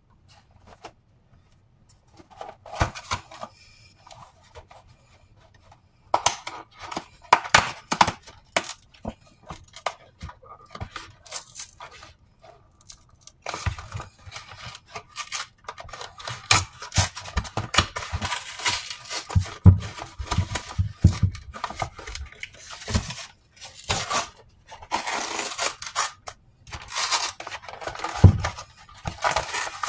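A cardboard chicken pot pie box being torn open and its packaging handled: irregular tearing and rustling of cardboard and wrapping, with scattered light knocks, starting a couple of seconds in and getting busier later.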